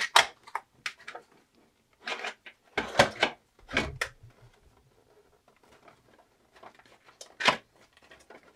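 Toy doll kitchen pieces being pushed and worked into a tight slot by hand: a run of short scrapes, clicks and knocks, the loudest about three seconds in and near the end, with faint rubbing between.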